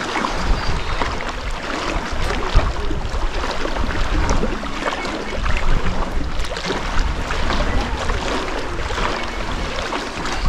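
Water splashing and sloshing as someone wades through shallow seawater, with wind rumbling on the microphone.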